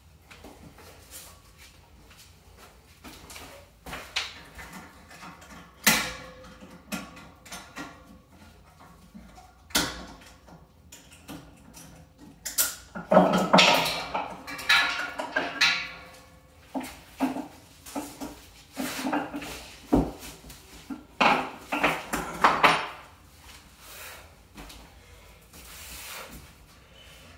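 A ratchet strap being unfastened and pulled off a cast iron radiator: scattered metallic clicks and knocks, with two longer stretches of clattering, one about halfway through and one near three-quarters of the way.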